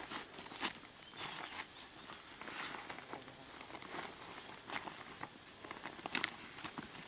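Woven plastic sack rustling and crinkling as hands rummage inside it: irregular rustles with a couple of sharper crackles. A steady high-pitched insect drone runs underneath.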